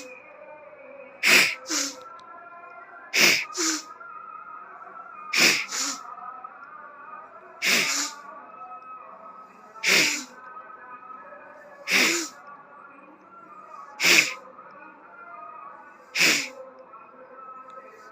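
A person sneezing again and again after a jal neti nasal rinse, about nine sharp sneezes roughly two seconds apart, the first few coming in quick pairs.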